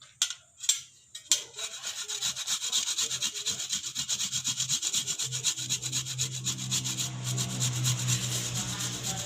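Kencur (aromatic ginger) root being grated by hand on a grater: a few separate scrapes, then quick rasping strokes, several a second, that keep going without a break.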